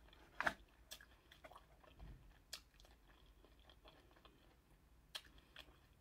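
Faint eating sounds: chewing, with a few short, sharp clicks and crackles as a piece of shellfish is picked apart by hand. The loudest click comes about half a second in.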